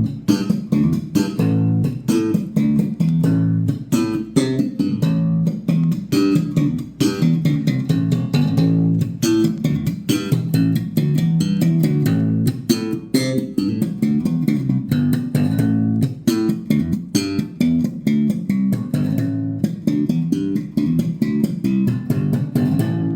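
Guitar music: plucked guitar notes over a bass line in a continuous run, starting abruptly and fading away near the end.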